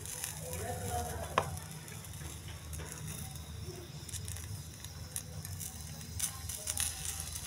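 Eggs frying in a hot pan without oil or ghee, with a steady sizzle and scattered faint crackles. There is one sharp tick about a second and a half in, and a steady low hum underneath.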